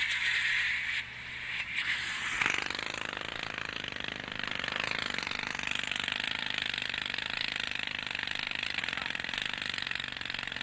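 Jackhammer hammering rapidly and continuously, as in road-building rock work. It changes character at a sharp knock about two and a half seconds in, then runs steadily.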